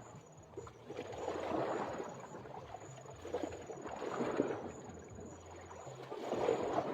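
Water waves washing and lapping, swelling and fading every two to three seconds.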